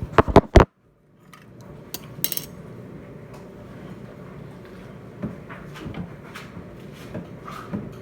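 Dishes and cutlery clattering at a dinner table: a quick run of four loud knocks at the start, then scattered lighter clinks and clicks.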